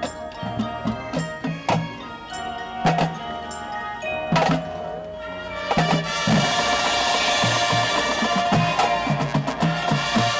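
Marching band playing: spaced drum and mallet-percussion strikes over held tones, then about six seconds in the full band comes in louder.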